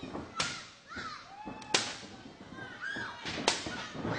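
Sharp cracking smacks of blows landing in a hardcore wrestling brawl: three hard hits, about a second and a half apart, the loudest near two seconds in and three and a half seconds in, with short shouts from the crowd between them.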